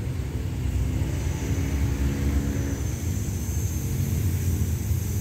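Steady low engine rumble, with a faint held hum for a second or so in the middle.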